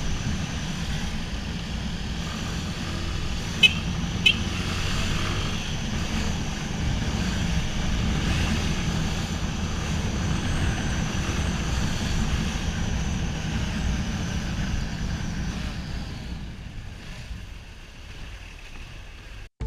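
Yamaha Fazer 250's single-cylinder engine running steadily under riding and traffic noise as the motorcycle moves through traffic. Two short beeps come about three and a half seconds in. The sound fades down near the end.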